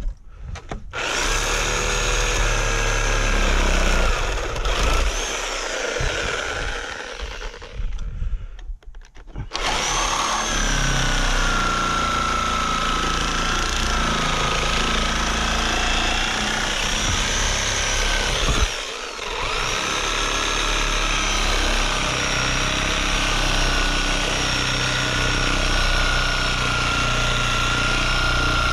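Chicago Electric reciprocating saw with a metal-cutting blade running and sawing through the nails between two nailed-together boards, its motor whine wavering with the load. It starts about a second in, stops for about a second and a half around the eight-second mark, then runs on with one short break near the two-thirds mark.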